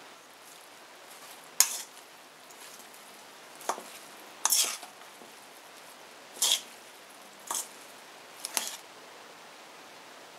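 Metal tongs tossing a dressed salad in a stainless steel mixing bowl: six short clinks and scrapes of metal on metal and wet vegetables, irregularly spaced a second or two apart, over a steady hiss.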